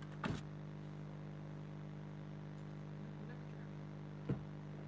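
Steady low hum inside a car, with two short knocks, one just after the start and one near the end.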